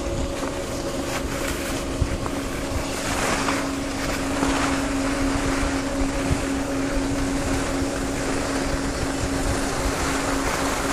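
A steady mechanical hum that grows louder about three seconds in, under wind buffeting the microphone.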